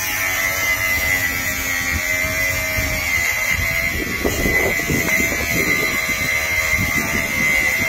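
Angle grinder running with a steady high whine as its disc cuts through a metal bike lock.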